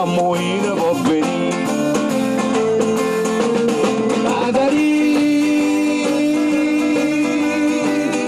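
Live band playing: acoustic guitar, electric guitar, bass guitar and drums, with a long note held through the second half.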